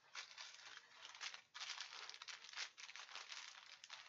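Small plastic baggies of diamond painting drills crinkling as they are handled, with a short pause about one and a half seconds in.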